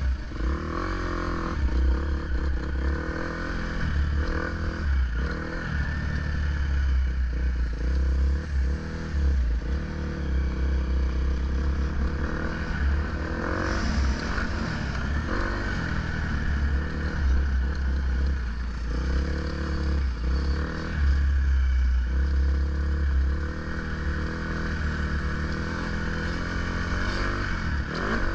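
Dirt bike engine running through a lap of a dirt track, its pitch rising and falling with the throttle, heard from a camera on the bike with heavy wind rumble on the microphone.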